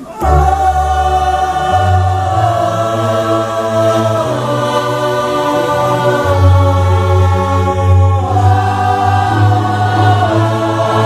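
Church choir singing a hymn in several voices over low, held accompaniment notes.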